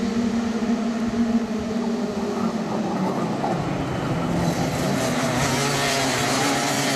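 Several Rotax DD2 125cc two-stroke racing kart engines running at race speed as a pack goes through the corners, their pitch wavering. About four and a half seconds in the sound turns fuller and hissier.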